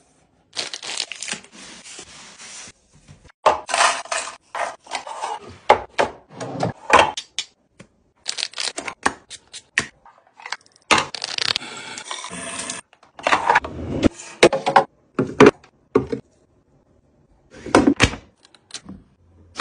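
Clear plastic organizer bins and toiletries being handled: quick runs of taps and clicks as items are set into and against acrylic bins, and stretches of crinkling plastic packaging. The sounds come in short bursts cut apart by moments of dead silence.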